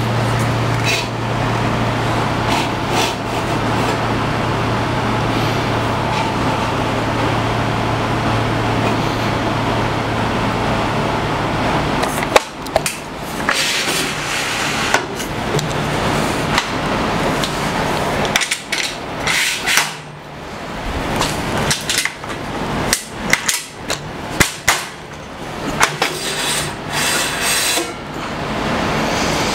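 Irregular metal knocks and clanks as the Incra fence rails are shifted and adjusted on the table saw. A steady low hum runs underneath and stops about twelve seconds in.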